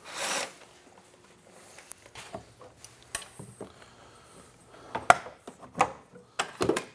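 A cordless power driver whirs briefly on a bolt. Then metal clinks and knocks as the snowmobile's gas tank support bars are worked loose and lifted out of the frame, with a sharp knock about five seconds in and a cluster of knocks near the end.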